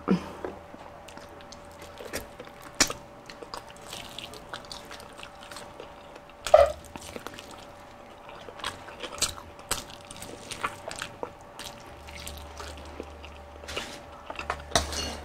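Close-miked eating sounds: a person biting and chewing crispy fried chicken, with scattered wet mouth clicks and smacks and one louder noise about six and a half seconds in.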